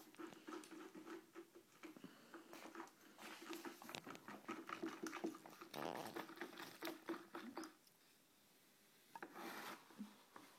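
A wooden stick stirring and scraping fake blood in a plastic bucket, with many small knocks and rubs against the bucket, under a faint steady hum. The stirring stops about three quarters of the way through.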